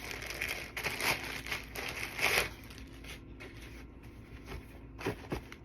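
Packaging crinkling and rustling as it is handled, busy for about two and a half seconds and then quieter, with two short knocks near the end.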